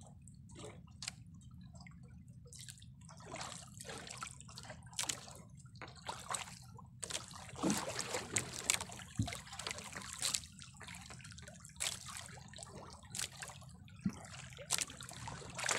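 Sea water lapping and dripping at the side of a small outrigger boat in short, irregular splashes, over a low steady hum.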